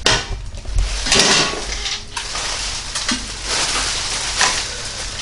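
Clear plastic packaging bags crinkling and rustling as they are pulled and unwrapped from metal mesh cooking accessories, with light clinks of the metal parts in between.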